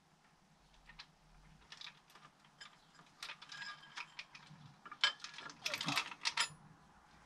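Timing chain for a BMW N13 engine rattling and clinking as it is fed by hand down into the timing case: a string of light metallic clicks and jangles, busiest about five to six and a half seconds in.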